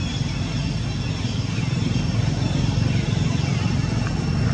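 A steady low engine rumble from a motor vehicle running nearby, growing a little louder toward the end, with faint steady high tones over it.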